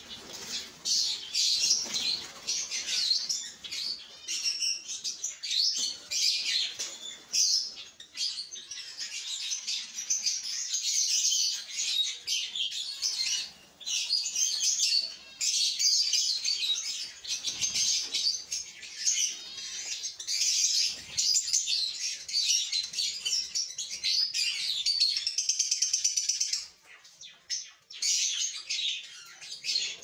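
Many lovebirds chattering together: dense, high-pitched chirping and twittering that goes quiet briefly about three-quarters of the way through, then resumes.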